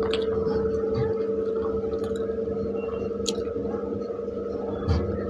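Close-up eating sounds of pav bhaji: bread being torn and scooped through the gravy, then bitten and chewed, with small wet clicks and a soft knock near the end. A steady hum runs underneath.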